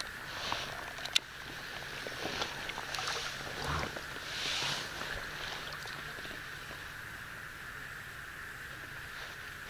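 Water swishing and lapping against an inflatable fishing raft as it is moved on calm water, with soft splashes in the first half. A single sharp click comes about a second in, and a steady high-pitched drone runs underneath.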